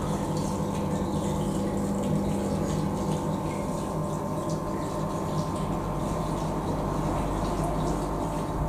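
Two submersible electric water pumps running steadily in shallow water, drawing down the last of a flood testing tank: a constant hum over the noise of moving water.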